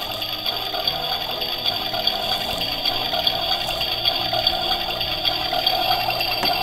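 A toy oven's electronic cooking sound effect playing through its small speaker after its chicken button is pressed: a steady crackling, sizzle-like sound with a thin high tone held over it.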